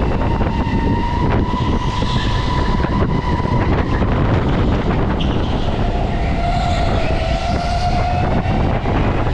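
Go-kart motor running at speed under heavy rumble and wind noise. Its steady note drops in pitch about halfway through and climbs back up near the end.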